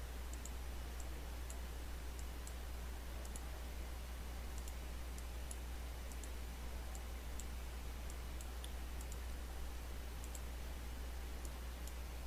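Faint computer mouse clicks, scattered irregularly, over a steady microphone hiss and low electrical hum.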